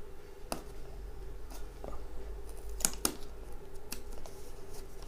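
Packaging being handled while pieces are pulled out of a smartwatch box: scattered small clicks and taps, loudest as two sharp clicks close together about three seconds in, over a faint steady hum.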